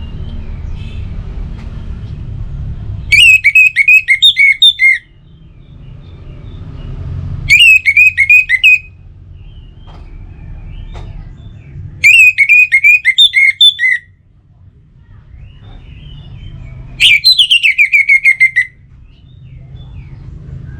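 Orange-headed thrush (anis merah) singing four loud phrases a few seconds apart, each a quick run of repeated notes lasting one to two seconds. A low rumble fills the gaps between phrases.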